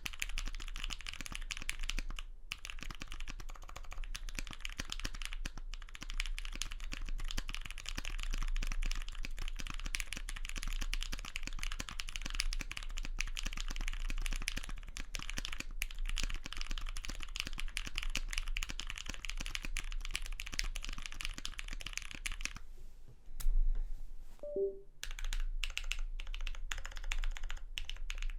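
Fast, steady typing on a custom mechanical keyboard with lubed Greetech Brown tactile switches, GMK keycaps and an aluminium plate with lots of foam. Near the end the typing stops for about two seconds, broken by a single louder knock, then starts again.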